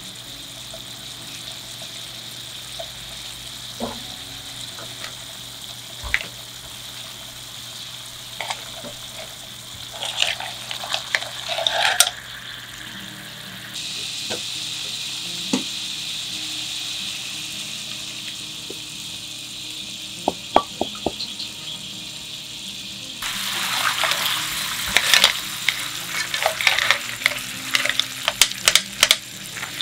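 Seafood simmering in a frying pan, a steady bubbling hiss with occasional clicks of clam and mussel shells. In the last several seconds a spatula stirs through the tomato sauce, scraping the pan and knocking the shells about.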